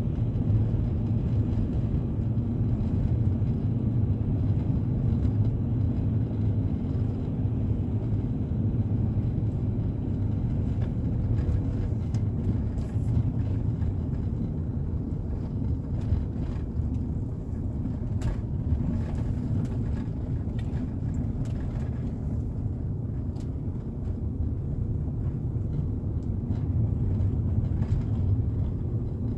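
Car driving on a snow-covered road, heard from inside the cabin: a steady low rumble of engine and tyres, with a few faint ticks midway.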